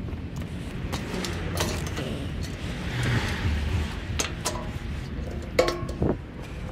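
Scrap metal being handled: scattered knocks and clanks of heavy rusted grill parts, with the sharpest clanks about five and a half and six seconds in, over a steady low rumble.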